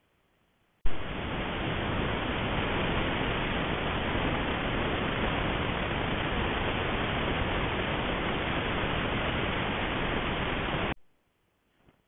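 Steady electronic hiss from a trail camera's recording, starting with a sharp click about a second in and cutting off abruptly near the end.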